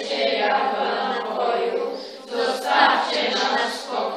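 Group of children's voices speaking together in unison, a chanted choral recitation of verse.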